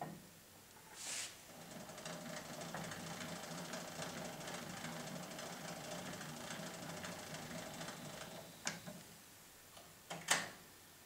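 Wind-up cabinet gramophone's clockwork mechanism whirring steadily with a fast fine ticking for about seven seconds. It is followed by two sharp clicks near the end, the second the loudest.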